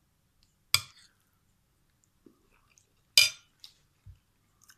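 A spoon clinking against a dish twice, about two and a half seconds apart, each strike ringing briefly.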